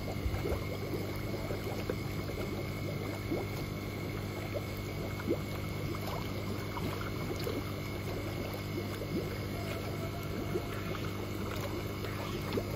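Water splashing and trickling in small irregular splashes over a steady low machine hum.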